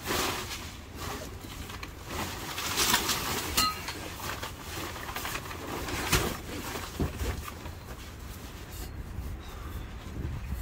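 Camping gear being handled and moved around: irregular rustling with scattered knocks and clicks, the sharpest about three and six seconds in.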